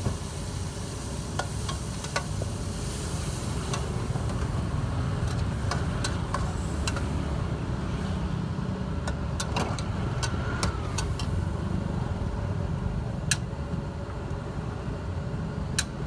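Food sizzling in a steel wok as it is stir-fried with a metal ladle, with scattered sharp clicks of the ladle knocking and scraping the pan, over a steady low rumble.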